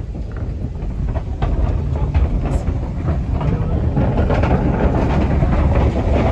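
A car rolling across a steel truss bridge, heard from inside the cabin: a rumble with rattling knocks as the tyres run over the bridge's steel deck, growing louder as it goes.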